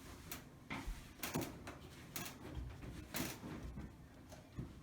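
Duct-taped flathead screwdriver prying at the top panel of a Samsung dryer: a series of short clicks and scrapes, roughly one every half second to second, as the panel's clips are worked loose.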